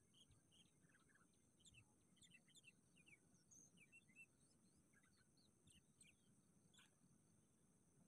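Faint, scattered short chirps of sooty-headed bulbuls, bunched into quick runs of several calls at times.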